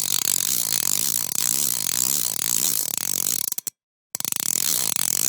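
A small hand crank being turned, giving a rapid run of fine ratcheting clicks. The clicking stops about three and a half seconds in, then starts again after a half-second pause.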